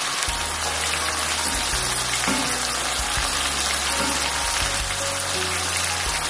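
Marinated chicken tikka pieces sizzling steadily as they shallow-fry in oil in a pan, being turned over with a spatula. Soft background music plays underneath.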